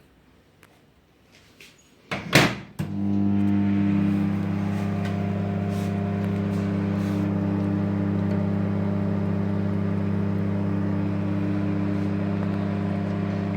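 A sharp knock about two seconds in, then a microwave oven starts up and runs with a steady electrical hum, set to medium-high.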